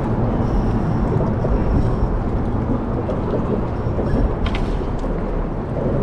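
Steady low rumbling noise aboard a small fishing boat, with a brief high clicking about four and a half seconds in.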